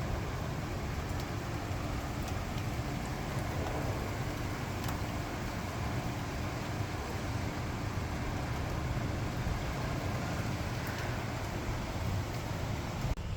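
Heavy thunderstorm rain falling steadily: an even hiss with a strong low rumble underneath.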